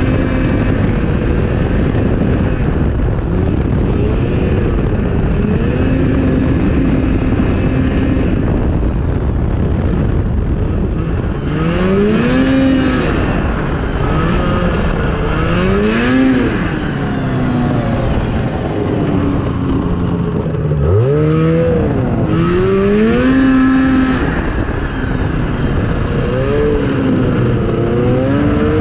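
Yamaha snowmobile engine running under way over a steady rushing noise. Its pitch holds level at first, then from about a third of the way in it rises and falls every couple of seconds as the throttle is opened and eased off, with one deep drop just past the middle.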